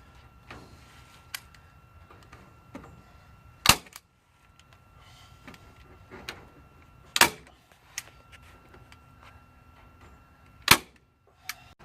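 A staple gun firing three times, about three and a half seconds apart, fastening wire mesh to a wooden 2x4, with lighter clicks and rustling in between.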